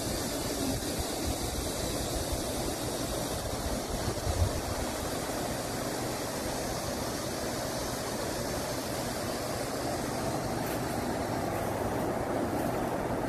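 Wind buffeting the microphone outdoors: a steady rushing noise with an uneven low rumble.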